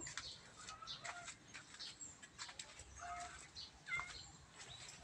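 Faint bird calls: short chirps and peeps at irregular intervals, the loudest a little before four seconds in.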